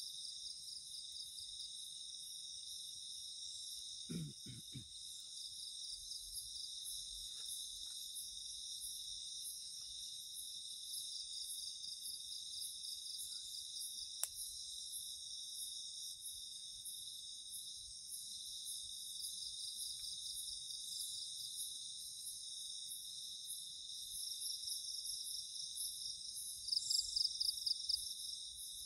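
Night-time chorus of forest insects such as crickets, a steady layered high trill, with a louder call of about six quick pulses near the end. A few soft knocks about four seconds in.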